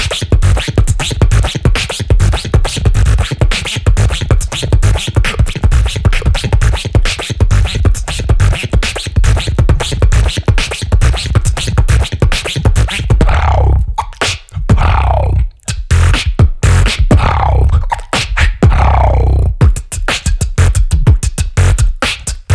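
Human beatboxing into a handheld microphone: a fast, dense pattern of kick and snare hits over heavy deep bass. In the second half, several sweeps falling in pitch cut in between the hits.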